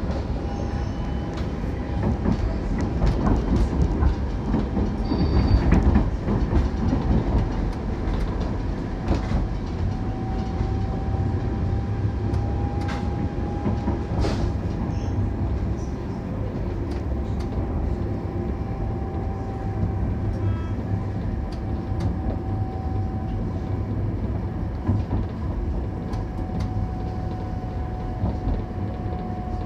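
Alstom Citadis Dualis tram-train running along the line: a steady low rumble of wheels on rail with scattered clicks and knocks, and a faint, slightly wavering whine.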